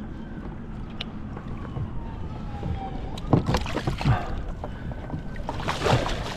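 Water splashing as a snook is released by hand beside a skiff: a few quick splashes a little past halfway as it is let go, then a bigger splash near the end as the fish kicks away, over light wind noise.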